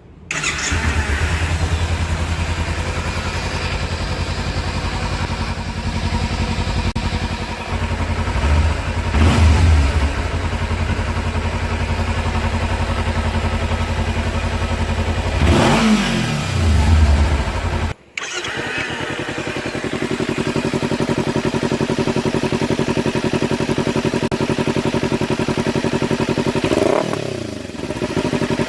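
2014 Kawasaki Ninja 300's parallel-twin engine idling steadily through its exhaust, with short throttle blips about nine and sixteen seconds in. After an abrupt cut about eighteen seconds in, it idles again with a different exhaust note, followed by another rev blip near the end.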